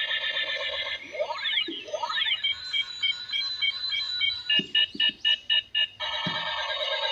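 Battery-powered toy's electronic sound effects: pulsing synthetic tones, two quick pitch sweeps, then a run of steady beeps and a few louder rapid pulses, before the pulsing tones return near the end.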